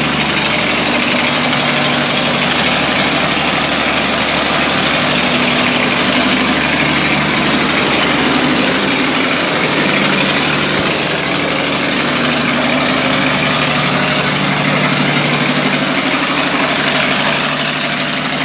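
An engine running steadily on its first run after standing unused for two years.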